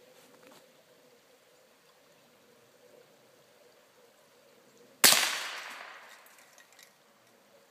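A single .22 gunshot hits an aerosol spray paint can, which bursts with a sharp bang about five seconds in. A hiss of escaping paint and gas follows and fades over about a second and a half.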